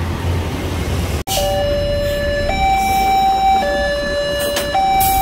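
Road traffic noise, then from about a second in a railway level-crossing warning alarm: an electronic two-tone signal switching between a higher and a lower note about once a second, warning that a train is approaching.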